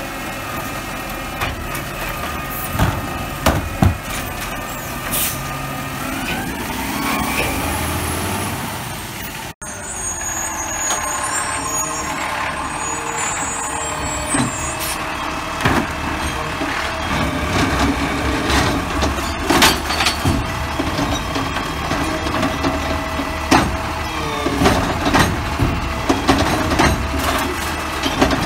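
Automated side-loader garbage truck's diesel engine running while its hydraulic lifting arm lifts, dumps and sets down a trash cart, with frequent clanks and knocks from the arm and cart.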